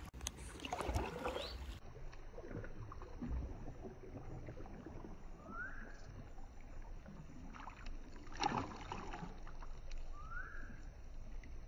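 Soft water sounds of paddling a kayak on a slow river: light splashes, drips and knocks of the paddle, with a brief flurry of sharper splashes near the middle. A short rising chirp is heard twice, about halfway through and again near the end.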